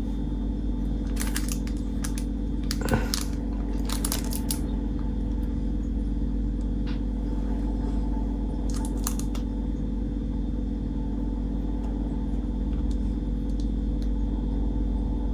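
A 1981 Zippo brass-cased lighter being handled: sharp metallic clicks in four short clusters, from the lid being flicked open and snapped shut, over a steady low hum.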